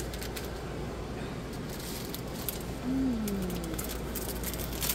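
A diamond painting canvas being handled and shifted on a light pad: the sheet rustling, with scattered crinkles and light taps. About three seconds in comes a brief hummed "mm" that falls in pitch.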